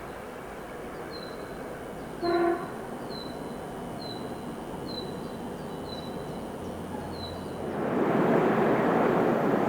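An approaching Skoda 68E electric locomotive gives a short horn toot about two seconds in. Near the end the train's running noise swells sharply as it arrives. Through this a bird repeats a short high chirp about once a second.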